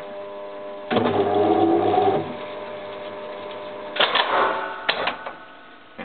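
Top-loading washing machine's motor and belt drive running with a steady hum during a test cycle, with a louder rushing noise for about a second starting about a second in. Mechanical clunks and clicks come about four and five seconds in, and then the drive quietens as the machine stops and locks before filling.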